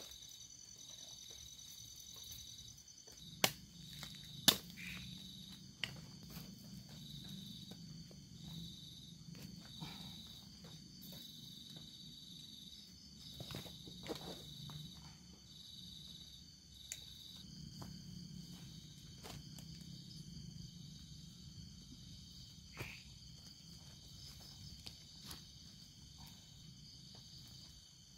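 Steady chorus of night insects chirping, one voice pulsing in an even rhythm. A few sharp knocks and clicks sound over it, two loud ones close together a few seconds in, from handling tent stakes and gear.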